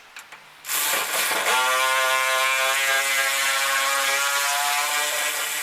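A power tool's motor spins up with a brief rising whine, then runs steadily at a constant pitch for about five seconds.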